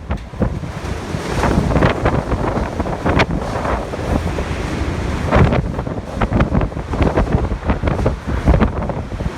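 Typhoon-force wind roaring in strong, uneven gusts and buffeting the microphone, with many sharp cracks and thuds.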